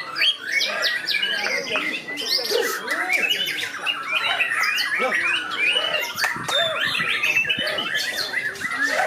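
Several white-rumped shamas singing at once, a dense overlapping stream of fast whistles, trills and harsh notes with no break.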